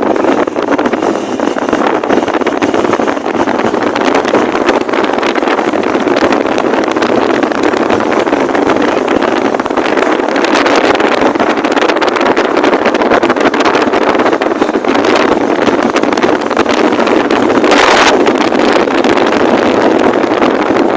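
Loud, steady wind rushing over the microphone of a moving vehicle, with a brief louder gust near the end.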